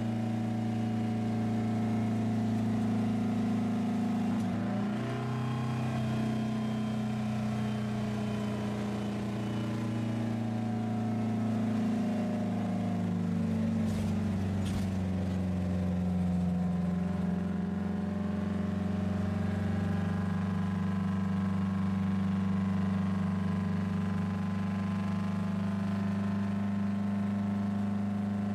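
Detroit Diesel V-71 two-stroke diesel engine of a 1977 GMC 7800 truck pulling the truck along, heard from inside the cab; the turbo has been removed to make it louder. The engine note shifts about five seconds in and drops between about twelve and seventeen seconds in, then holds steady. Two short sharp clicks come about fourteen and fifteen seconds in.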